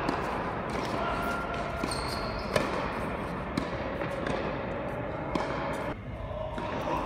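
Tennis balls struck by rackets and bouncing on an indoor hard court during a doubles rally: a handful of sharp pops, the loudest about two and a half seconds in, ringing in a large hall.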